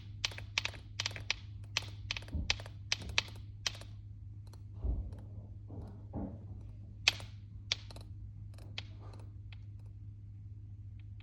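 Irregular sharp ticks and taps, about three a second at first and then sparser, over a steady low hum, with two dull thumps about two and five seconds in.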